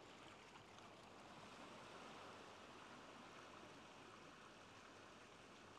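Faint, steady wash of ocean waves, swelling slightly about two seconds in.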